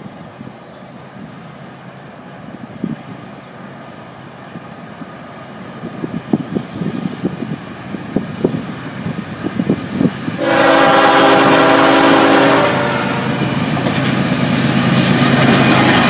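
Canadian National diesel freight train approaching: a low, uneven rumble with scattered thumps grows louder, then the locomotive's air horn sounds one long blast about ten seconds in. Loud rumbling and rail noise follow as the lead locomotive passes close by.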